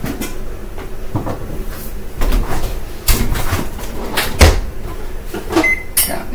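Kitchen clatter of knocks and clunks as a tray of chicken wings goes back into the oven and the oven door is shut. Near the end there are a few short electronic beeps as the cooking timer is set.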